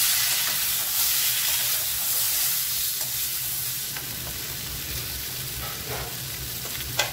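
Potatoes and green peas frying in hot oil in a steel kadai: a steady sizzle, loudest at first while a metal spatula stirs them and slowly easing off. A few light clicks, the sharpest near the end.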